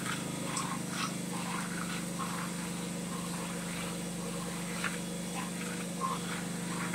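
Shop vacuum running steadily while it sucks up debris from a floor, with small bits ticking into the hose now and then. Underneath it, a Pulsar G450RN inverter generator runs under the vacuum's load, and the vacuum is the louder of the two.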